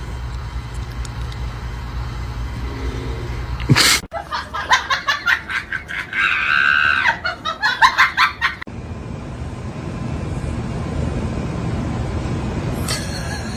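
A sudden thump about four seconds in, then a person laughing hard in quick bursts for a few seconds, with a high shriek in the middle, over a steady low rumble.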